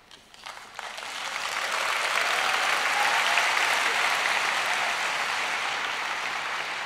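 Large audience applauding, swelling over the first couple of seconds and then slowly tapering off.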